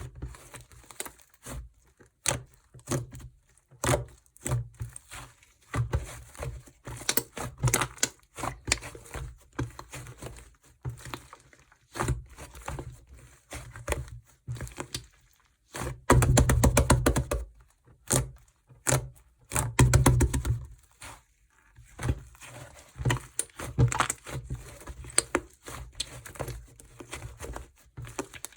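Clay-mixed slime being squished and pressed by hand, with short sticky clicks and small pops. About two-thirds of the way through come two denser runs of rapid crackling pops.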